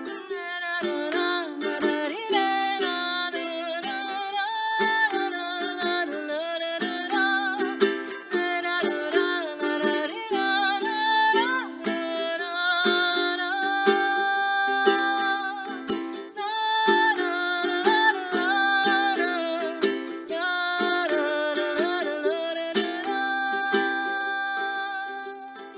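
Music: strummed chords on a small plucked string instrument under a melody line that slides between notes, fading near the end.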